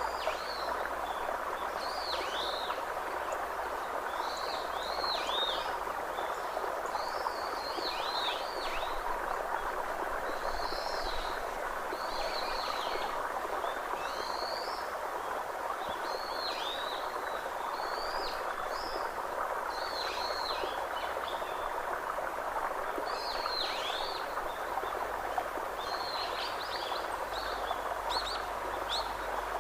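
Birds calling: short, high, downward-sweeping notes, often in pairs or small groups, repeated every second or two over a steady even hiss.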